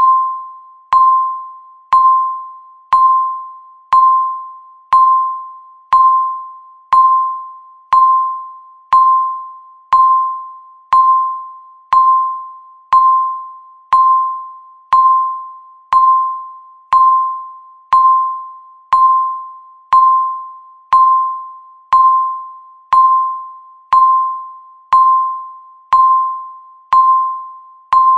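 Countdown timer's electronic tick: one short, pitched ping every second, each starting with a click and fading away before the next, in a steady unchanging rhythm.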